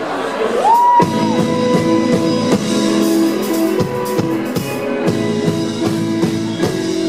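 Live rock band playing: electric guitar over a drum kit, with a note sliding up and holding about a second in.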